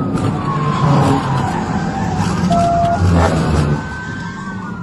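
Police car siren wailing, its pitch sliding slowly down and climbing again near the end, over engine and road noise. From about one to four seconds in, a louder stretch of tyre and knocking noise marks a PIT maneuver on the fleeing car.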